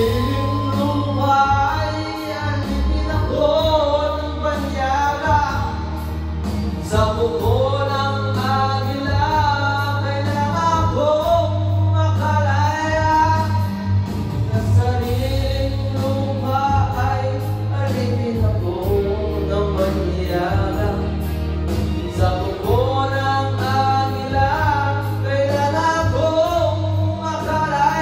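Karaoke: a man singing into a microphone over a backing track with a steady bass line, voice and music both coming through a portable loudspeaker.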